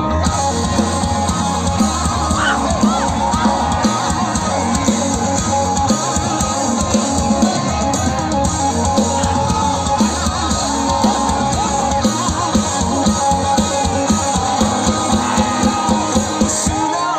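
Live rock band playing on stage, with electric guitars and a drum kit. In the second half the drums hit on an even, steady beat.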